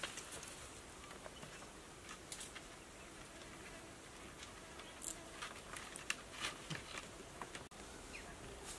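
Faint scattered rustles and light clicks from bamboo poles, dry leaves and soil being handled while a bamboo frame is worked on.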